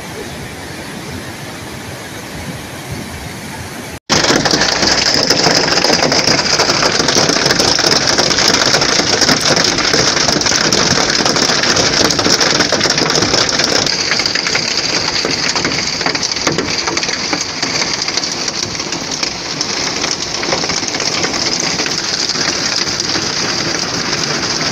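Muddy floodwater rushing down a gully for the first few seconds. Then, after a sudden cut, a heavy hailstorm with rain: a loud, dense hiss of hailstones and rain pelting the ground, with fine rapid patter throughout.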